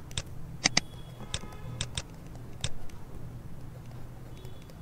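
Sharp clicks and taps from handwriting on a computer, scattered through the first three seconds, over a low steady hum.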